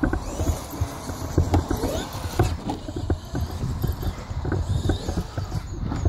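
Electric RC trucks bashing over rough ground: a run of irregular knocks and rattles over a steady low rumble, with a faint motor whine now and then.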